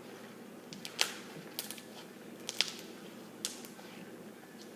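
Homemade slime being worked in the hands, giving off a handful of sharp, irregular clicks and snaps.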